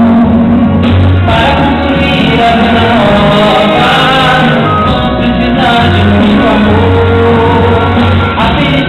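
Male singer singing into a microphone, amplified, over a live symphony orchestra; loud, continuous music.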